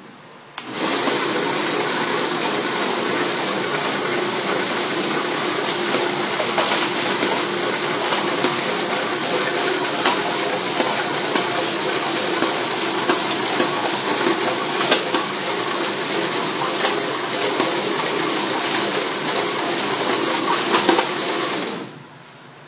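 Drill press running as a dough mixer, starting about a second in and stopping near the end: a steady loud noise with a faint hum and a few clicks.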